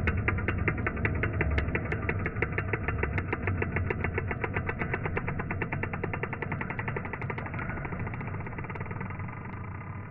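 Ping-pong ball caught in the gap between a door and its frame, bouncing rapidly back and forth. It makes a fast, even run of light clicks, several a second, that slowly fade.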